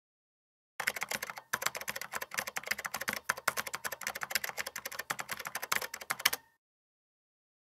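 Rapid typing on a keyboard: a fast, uneven run of key clicks starting about a second in, with a brief pause, then cutting off suddenly about six and a half seconds in.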